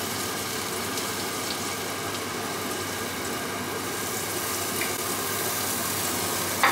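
Hot oil sizzling steadily in a small wok as handesh batter deep-fries.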